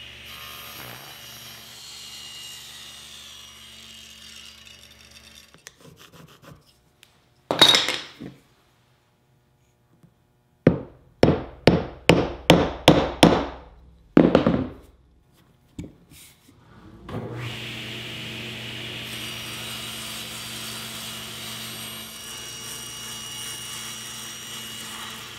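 A table saw runs while ripping a white oak board to width. Then comes a single loud knock, a quick run of about eight sharp taps on the wood with one more a moment later, and the table saw running through another cut near the end.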